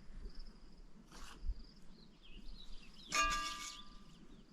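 A metal utensil striking metal cookware once, about three seconds in, with a clang that rings on briefly; a short scrape comes about a second in. Faint bird or insect chirps sound in the background.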